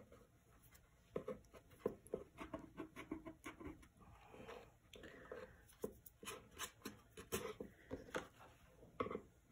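Faint taps, light knocks and rubbing of fingers working over a painted box frame, pressing hot-glued craft pom-poms into place.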